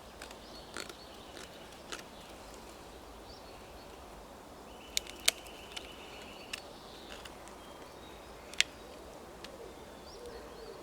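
Victorinox Ranger Grip 55 blade carving a small notch in wood: scattered sharp clicks and snaps of the cut, the loudest about five and eight and a half seconds in. A high pulsing trill sounds twice in the background, at the start and around five seconds in.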